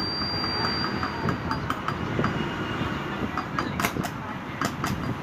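Electric arc crackling and spitting as a welding rod is struck against an iron crowbar, fed by an inverter converted into a welding machine. Sharp snaps come thick from about three and a half seconds in, as the arc throws sparks.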